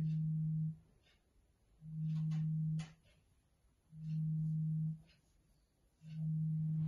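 Mobile phone vibrating on the table: a low steady buzz that comes on for about a second and stops for about a second, four times over, the pattern of an incoming call.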